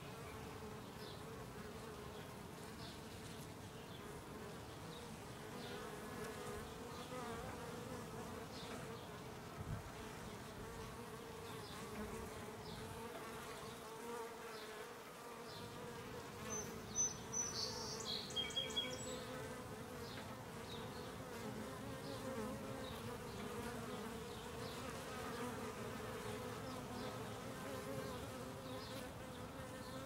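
Honeybees buzzing at a hive entrance: a steady, slightly wavering hum of many wingbeats, with a few short high chirps about halfway through.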